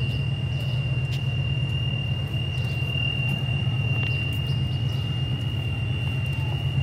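Steady low rumble of an approaching diesel locomotive hauling a freight train, with a thin steady high whine above it and a few faint ticks.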